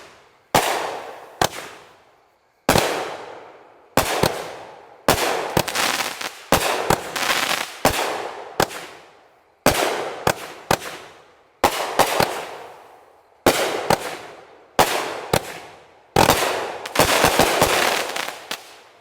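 Dominator Diamondback 200-gram firework cake firing: a series of sharp shots about every one to one and a half seconds, each trailing off over a second or so, with quick clusters of reports near the end before it finishes.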